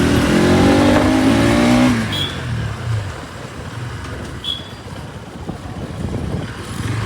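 Bajaj Pulsar NS200's single-cylinder engine accelerating, its pitch rising for about two seconds, then the throttle closes and the engine note drops and falls away as the bike coasts. Two short high chirps come during the quieter part.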